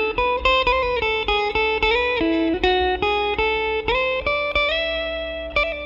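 Electric guitar played through an amp, picking a run of single notes, a few a second. Under it runs a steady low 60 Hz buzz from the amp: mains line hum, the kind usually blamed on a ground loop.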